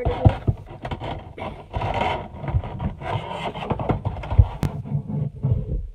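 Stiff clear plastic packaging insert of a Funko Pop box crinkling, scraping and rubbing as it is worked loose by hand. There are scattered light knocks and a few sharp clicks, one about four and a half seconds in.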